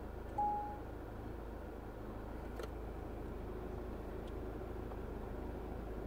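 Steady low background rumble, with one short, steady high tone about half a second in that is the loudest moment.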